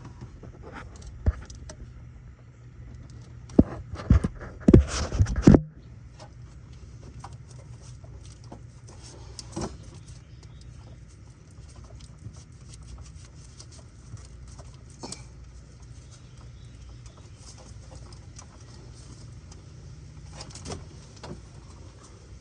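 Hand tools and metal parts clanking and clinking as bolts and fittings are worked on under the hood: several sharp clanks in the first five seconds or so, then occasional quieter ticks over a steady low hum.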